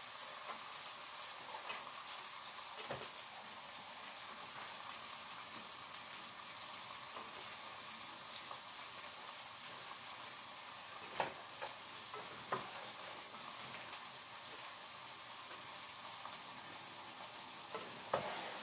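Chicken breasts sizzling faintly and steadily on a cast-iron flat-top griddle, with a few light clicks and knocks as hands toss oiled fettuccine in a stainless steel bowl.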